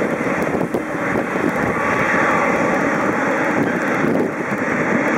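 Boeing 777-300ER's twin GE90 turbofan engines running at taxi power, a steady jet rumble as the airliner taxis past.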